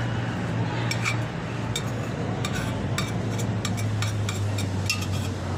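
Steel spoon clinking and scraping against the inside of an aluminium pot as food is scooped out and eaten: a scatter of short, sharp clicks over a steady low hum.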